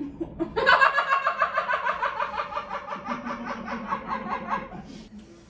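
A woman laughing hard: a long run of rapid, evenly spaced ha-ha pulses that slowly fall in pitch, lasting about four seconds.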